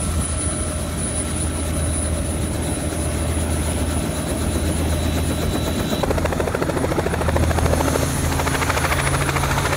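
Small helicopter running with its rotor turning: a steady low engine and rotor hum, with the rhythmic blade chop growing stronger from about six seconds in.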